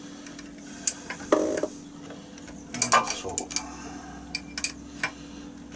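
Metal clicks and clinks of a chuck key working the jaws of a mini lathe's four-jaw chuck: a handful of sharp, separate knocks and a short rattle, over a faint steady hum.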